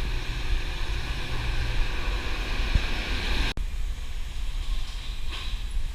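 Steady city traffic noise with wind buffeting the microphone, cutting abruptly about three and a half seconds in to a quieter stretch.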